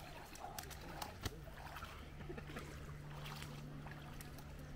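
Shallow lake water splashing and lapping at a sandy shore as a man wades out and a wet dog moves along the water's edge, with small scattered splashes over a steady low hum.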